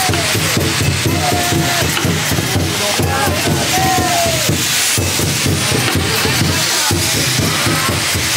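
Shishimai lion-dance festival music with steady drumming and short wavering high tones. A loud, even hiss of handheld firework fountains spraying sparks runs over it.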